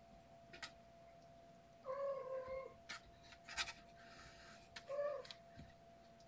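Cat meowing twice: a longer meow about two seconds in and a short one near five seconds, with a few faint clicks between them and a faint steady hum underneath.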